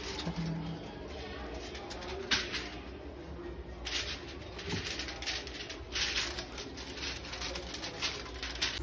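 Aluminium foil crinkling in short rustles as it is handled after being lifted off a frying pan, over a steady low hum, with a bird cooing in the background.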